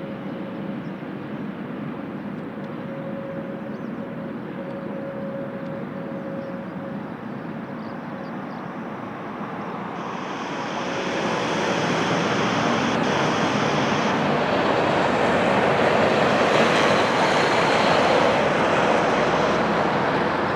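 Jet airliner on final approach to land, its engine noise a steady rush with a faint whine at first, growing louder about halfway through as it comes closer.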